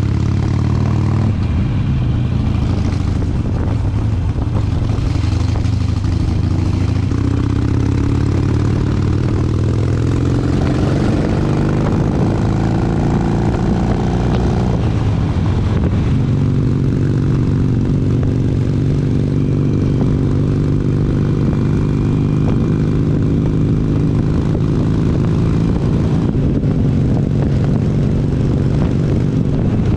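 Harley-Davidson V-twin motorcycle engine running under way, its pitch rising as it accelerates between about a quarter and halfway through, then holding a steady cruising note.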